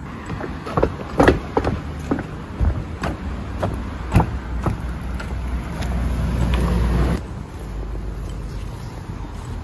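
Traffic on the national highway overhead, with a vehicle rumbling past that swells and then cuts off abruptly about seven seconds in. Several sharp knocks and clicks come in the first few seconds.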